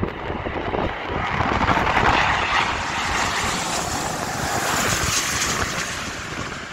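British Airways twin-engine jet airliner passing low overhead on final approach with its gear down, the jet engine noise building to its loudest about two seconds in and then slowly fading. Wind buffets the microphone underneath.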